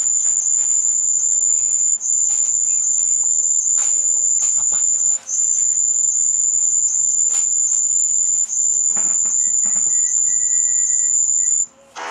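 A loud, steady, very high-pitched electronic tone from the video's sound effects. It breaks off for a moment about every three seconds and stops shortly before the end. A buzzy, many-toned electronic sound starts just as it stops.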